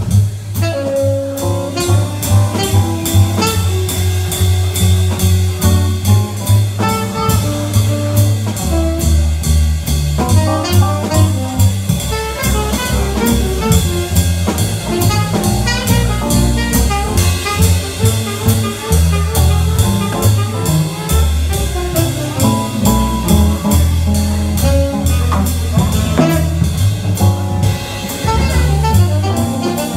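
Live small-group jazz: tenor saxophone playing a melodic line over a drum kit keeping time on the cymbals, with a double bass underneath.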